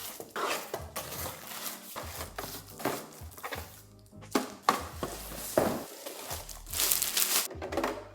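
Background music over crinkling packaging and the knocks of plastic fridge organizer drawers being unwrapped and handled, in short irregular bursts.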